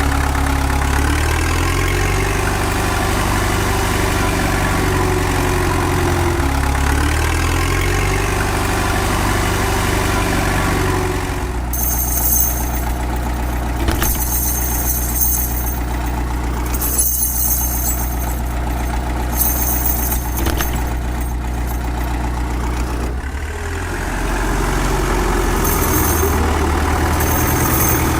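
Tractor-type engine running steadily, its pitch dipping and recovering twice. A thin high-pitched whine comes and goes in the second half.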